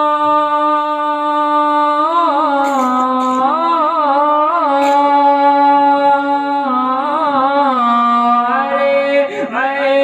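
A man singing a naat, drawing out long held notes with ornamented, wavering turns between them.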